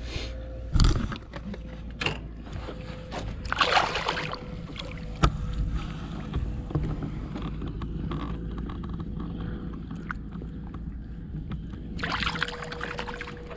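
Water splashing and swishing at the side of a small boat as a snook is held in the water by hand and released, with louder splashes about four seconds in and again near the end. A few sharp knocks against the boat in the first few seconds.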